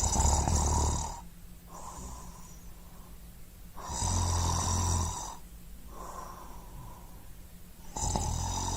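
Snoring sound effect: three loud snores about four seconds apart, each followed by a quieter breath out.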